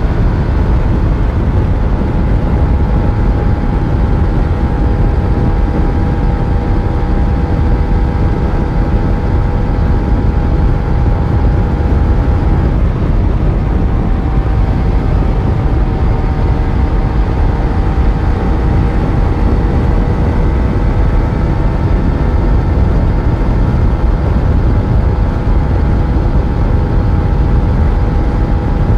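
Yamaha FZ1 inline-four motorcycle engine running at a steady riding speed over a heavy low rumble of wind and road noise. The engine note shifts briefly about thirteen seconds in, then settles again.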